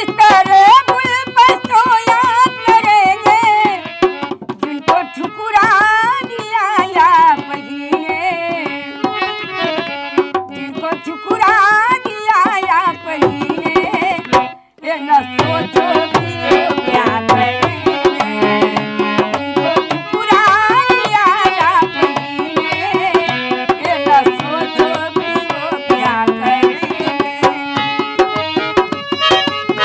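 Folk music: a dholak played in a quick rhythm under an elderly woman's singing. The music breaks off for a moment about halfway, then picks up again.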